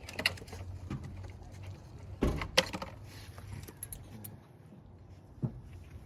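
Metal hand tools clinking and knocking during work on a car engine: a few separate sharp knocks, the loudest pair about two and a half seconds in, with lighter clicks between.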